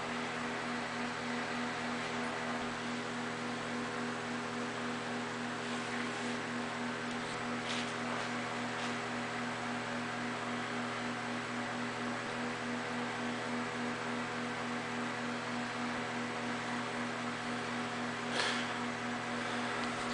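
Steady electrical or mechanical hum: several held tones over an even hiss, with a faint click about eight seconds in and another near the end.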